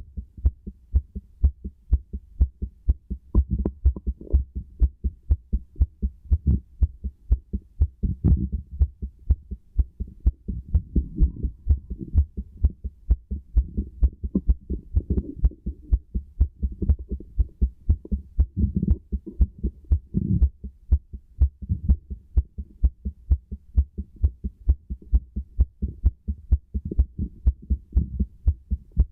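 Human heartbeat heard through a stethoscope: a steady, regular run of low beats.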